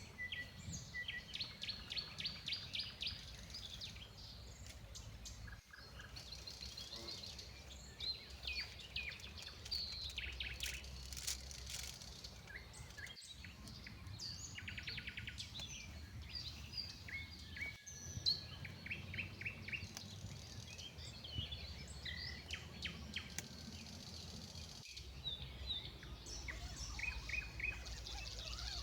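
Several forest birds calling, a steady chorus of short chirps and rapid trills, over faint low background noise.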